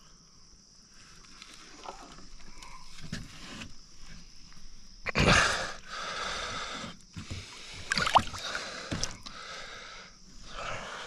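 Water splashing and sloshing at the side of a boat as a hooked catfish is hauled up to the surface on a limb line, with the loudest splash about five seconds in.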